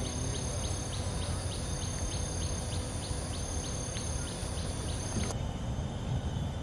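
Outdoor ambience: a steady low rumble with a small animal chirping rhythmically, short high chirps about three a second. The chirping stops abruptly about five seconds in.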